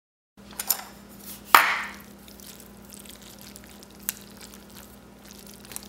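Chopsticks clicking and knocking against a ceramic bowl of noodles: a few light taps, with one sharp, louder knock about a second and a half in. A faint steady hum runs underneath.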